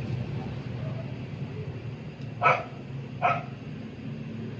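A dog barking twice, two short barks a little under a second apart, over a steady low hum.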